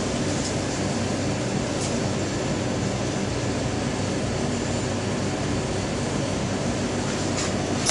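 Steady machine hum and hiss with a faint low drone, with a few faint high clicks.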